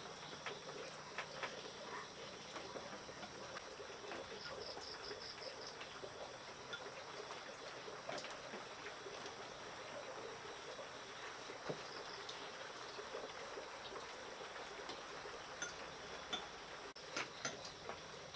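Night insects chirping in a steady high-pitched drone, with a short pulsed trill about four seconds in. Light clicks of chopsticks against rice bowls scattered throughout.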